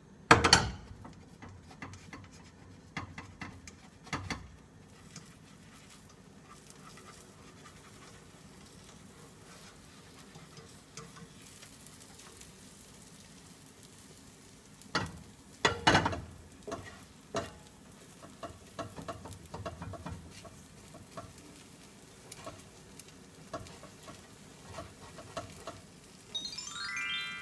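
Black cooking utensils scraping and knocking against a nonstick frying pan as a cheese omelet is folded, over a faint steady sizzle of the omelet frying in butter. The loudest knocks come about half a second in and around 15 to 16 seconds, with a run of smaller scrapes and taps after them. Near the end a rising chime sound effect plays.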